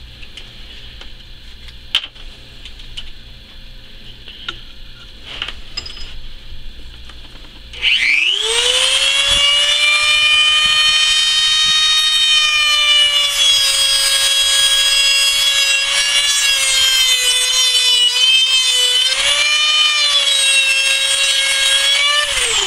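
Dremel rotary tool with a cutoff wheel spinning up with a rising whine about a third of the way in, then running at a steady high whine while cutting into the end of an empty lighter, the pitch sagging briefly under load near the end before it starts winding down. Before it starts, light handling clicks and knocks.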